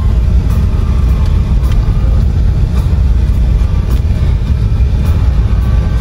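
Steady low rumble of a car driving on an unpaved road, heard from inside the cabin: engine and tyre noise.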